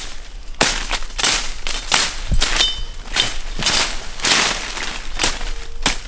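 Leafy forest undergrowth rustling and crackling as stems and leaves are pushed aside and broken by hand, in a quick, irregular run of strokes.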